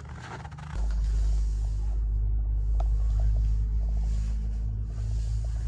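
A steady low rumble that comes in suddenly about a second in, the sound of wind buffeting the microphone outdoors, with a few faint clicks over it.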